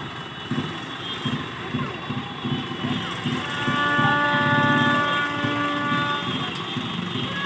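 Festival loudspeaker sound box blaring a loud, steady horn-like tone made of several pitches together, over a rhythmic low pulse. The horn tone swells about three and a half seconds in.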